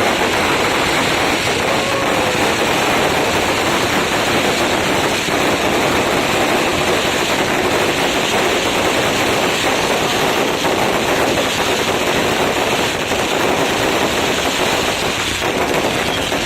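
Fireworks crackling: a dense, unbroken rattle of rapid small bangs, steady in loudness.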